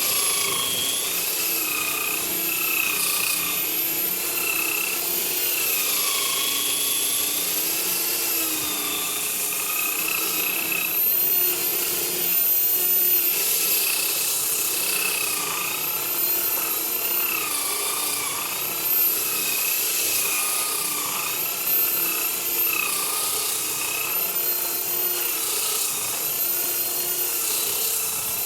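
Electric drill converted into a sander, running continuously with coarse sandpaper grinding against wood. The motor's whine wavers up and down in pitch as the load changes, over a steady rasping hiss.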